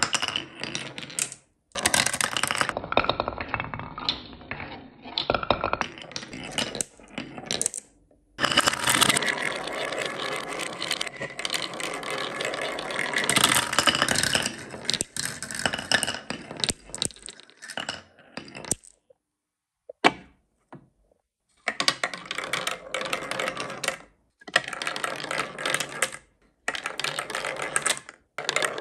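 Glass marbles rolling and clattering down wavy wooden track grooves and whirling through a plastic spiral funnel, as a dense rattle that cuts off abruptly several times, with a longer pause about two-thirds of the way through broken by a single click.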